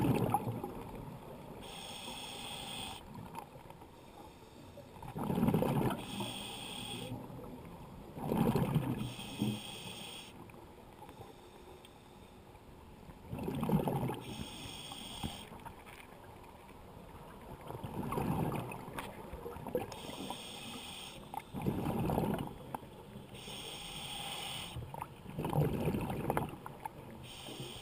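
Scuba diver breathing through a regulator underwater, in a steady cycle roughly every four seconds: a hiss from the regulator on each inhale, then a louder, low rush of bubbles on each exhale.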